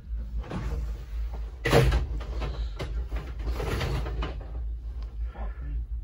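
Humvee's V8 diesel running under load, a steady low rumble heard inside the cab, with rough scraping swells and clunks and one loud bang about two seconds in. The engine is knocking hard with almost no oil pressure, a sign of rod knock.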